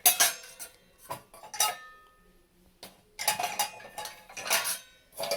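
Metal dishes and utensils clinking against each other as they are moved in a dishwasher rack, in several separate bursts. One clink about a second and a half in leaves a short ringing tone.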